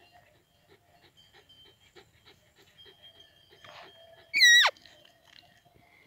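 One short, loud, squeaky peep from a roe deer call (Blatter) near the microphone. It wavers briefly at the top, then drops steeply in pitch. It imitates a doe's fiep to lure a rutting roebuck. A faint rhythmic ticking, about four a second, runs underneath.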